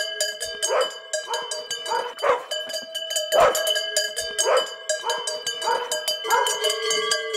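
A dog barking over and over, roughly once a second, while cows are driven out of the barn. Behind the barks, steady ringing tones from a cow's neck bell.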